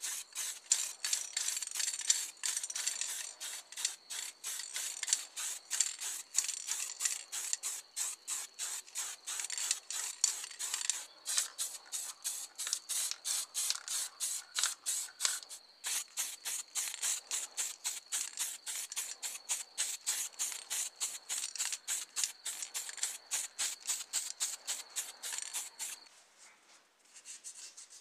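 Spray paint hissing in rapid short bursts, about three or four a second, with a faint steady high whistle under it; it stops shortly before the end.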